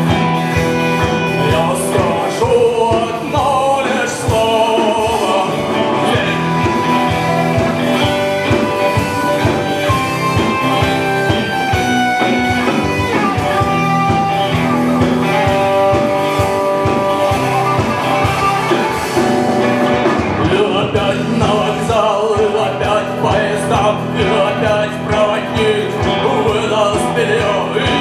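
A rock band playing a song, with singing over electric guitar, bass and drums.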